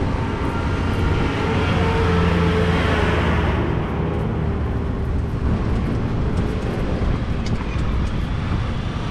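A low engine hum with a steady pitch, louder from about one to four seconds in and then easing off, over steady outdoor traffic-like noise.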